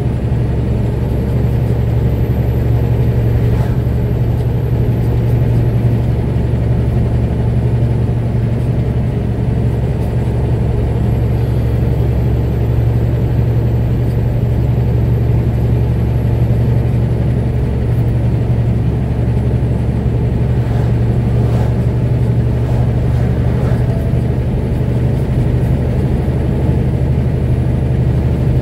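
Steady drone of a vehicle's engine and tyres while driving along a road at a constant speed, with a faint thin high whine drifting slowly up and down in pitch.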